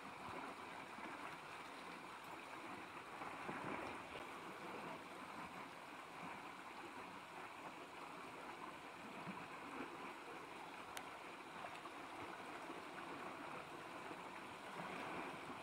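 Faint, steady rush of a shallow river running over a rocky riffle.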